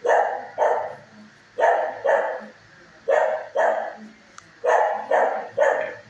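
A dog barking in a steady rhythm, mostly in pairs of barks about every one and a half seconds, each bark echoing off the concrete-block walls of a shelter kennel.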